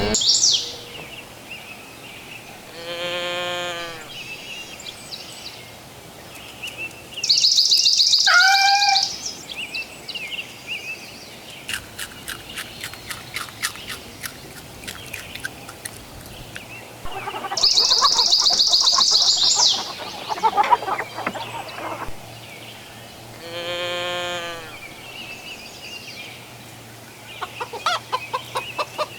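Birds chirping and calling in separate bursts: twice a run of rapid high chirps lasting about two seconds, two longer lower calls that sound alike, and a short call that rises and falls.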